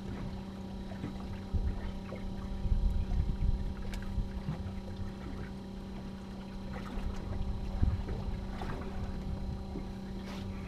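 A fishing boat's engine runs steadily, a constant hum made of several even tones, under uneven low rumbling. There is a sharp click about four seconds in.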